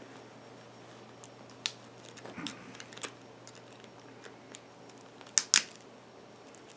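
Pliers clicking and scraping against the plastic base of an LED bulb while trying to pull out its driver, which is set fast in potting compound. It comes as a few scattered sharp clicks, the loudest two close together near the end.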